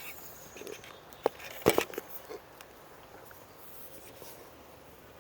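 Two sharp clicks, about a second and a half in and half a second apart, then a few fainter taps, over faint outdoor background noise.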